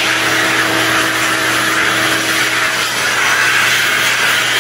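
Shop vacuum running loud and steady, its nozzle brush drawn over a freshly sanded trunk lid to pick up the sanding dust.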